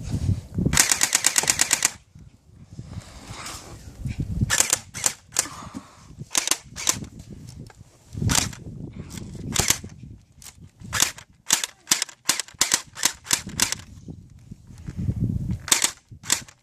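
Airsoft guns firing: a rapid full-auto burst of about a second near the start, then many single snapping shots scattered through the rest, bunched together in a quick string later on.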